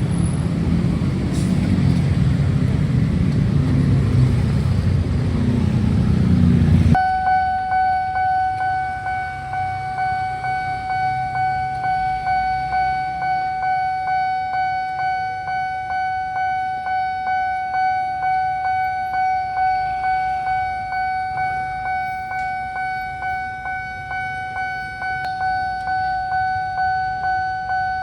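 Railway level-crossing barrier alarm: a steady electronic tone with overtones, pulsing about twice a second. It cuts in suddenly about seven seconds in, after a loud rushing noise.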